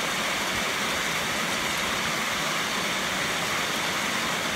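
Rain falling steadily on the pen's roof, an even hiss.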